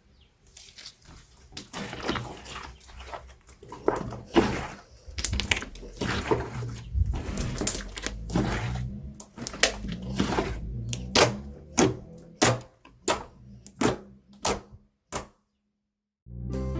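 Slime being squished and worked by hand: a run of irregular sticky clicks and pops that thin out to single pops near the end. Music starts just before the end.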